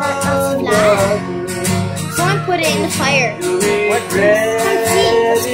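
Acoustic guitar strummed in a steady rhythm, with a man singing a melody along with it.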